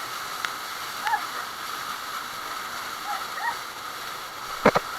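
Steady rushing of a waterfall stream, with a few short chirps over it and one sharp, loud knock near the end.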